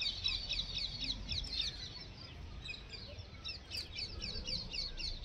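Bird chirping in a fast run of short, high chirps, several a second, over faint background noise.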